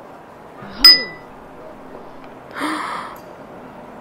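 A mallet striking a sculptor's chisel: one sharp metallic clink with brief ringing about a second in. A short noisy rasp follows later.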